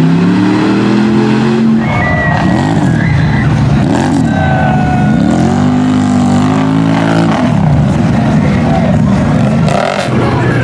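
Lifted pickup's engine revving, its pitch climbing as the truck pushes through mud. About two seconds in it gives way to ATV engines being revved, their pitch swinging up and down several times.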